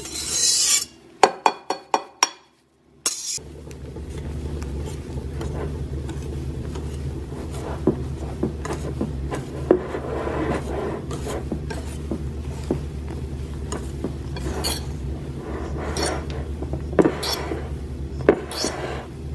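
Wire whisk folding beaten egg whites into a runny egg batter in a plastic bowl: soft rubbing and squelching strokes with light ticks of the wires against the bowl. A few sharper clicks come in the first seconds, and a steady low hum runs under the stirring from about three seconds in.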